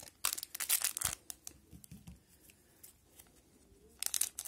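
Crackly rustling and crinkling of trading cards and a foil hockey-card pack being handled: a dense burst in the first second, scattered light ticks after it, and another dense burst of crinkling near the end as the pack is gripped at its top edge.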